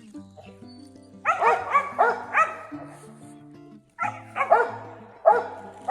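Squirrel dogs barking in two quick runs of several barks each, over background music.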